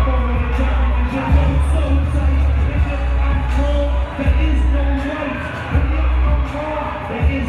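Loud music with heavy, sustained bass notes and a singing voice.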